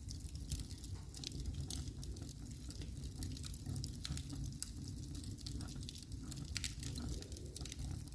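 Wood fire crackling in a fireplace: frequent sharp pops and snaps over a steady low rumble.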